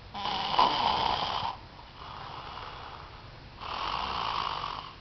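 A man snoring in a heavy sleep after a night of drinking: two long, loud snores about three and a half seconds apart, with a quieter breath out between them.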